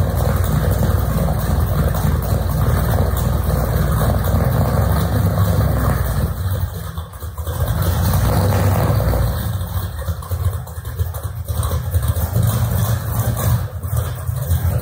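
Muscle car engine running loud, its exhaust throbbing. The sound sags briefly about seven seconds in, then picks back up.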